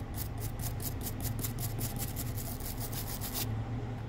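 Quick repeated rubbing or scraping strokes, about six a second, that stop about three and a half seconds in, over a steady low hum.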